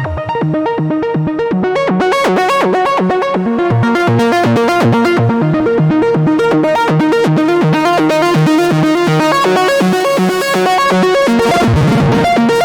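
Electronic music: a synthesizer playing a fast, repeating sequence of short notes, with a sweep near the end.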